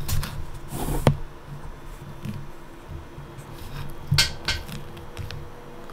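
Large 3D printer being switched on: a low hum as it powers up, a sharp click about a second in, and a few light clattering knocks around four seconds in.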